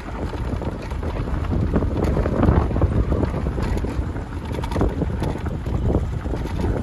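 Strong wind buffeting the microphone on a moving motorcycle, a heavy uneven rumble over the bike and the rough track.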